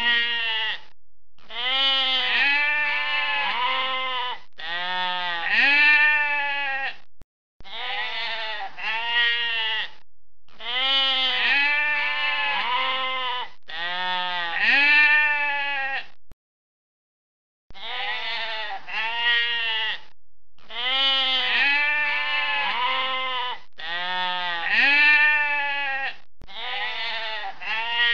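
Lambs bleating: many short, high, wavering bleats in quick succession, in runs of a few seconds, broken twice by short silences.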